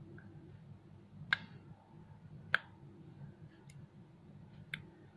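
Homemade slime being squeezed and stretched by hand, making sharp clicks: four separate pops about a second apart, the sound of a clicky slime.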